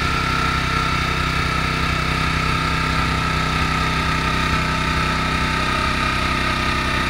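Walk-behind snowblower's engine running steadily under load while clearing deep snow and throwing it out of the chute, an even drone with a steady high whine.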